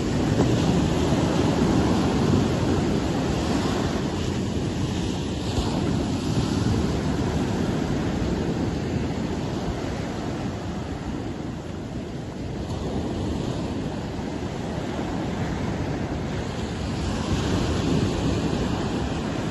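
Sea surf breaking and washing up a sandy beach in a steady, slowly swelling rush, with wind rumbling on the microphone.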